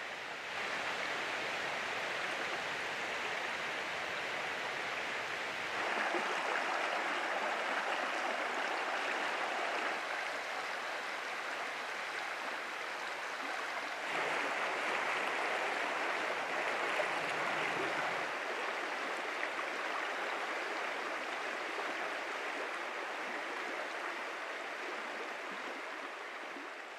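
Shallow brook flowing over rocks, a steady rush of running water. It steps up a little in loudness twice, about six and fourteen seconds in, and fades out at the end.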